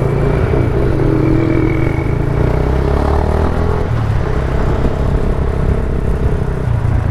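Motorcycle engine running steadily while riding on the road, with a constant heavy low rumble. Its pitch shifts a little about halfway through.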